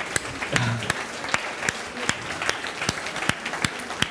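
Audience applauding: a dense, steady stream of hand claps from a full hall.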